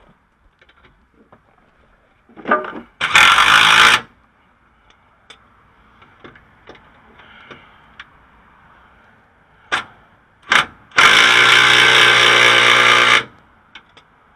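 Impact wrench run in bursts, driving the sway bar bushing bracket nuts down: a burst of about a second around three seconds in, then two quick blips and a longer run of about two seconds near the end.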